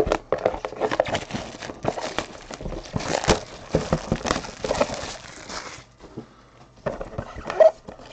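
Crinkling, rustling and crackling of a sealed trading-card box's plastic wrap and cardboard being torn open and handled by gloved hands. It is dense for about six seconds, goes quiet briefly, then a few sharper handling sounds come near the end.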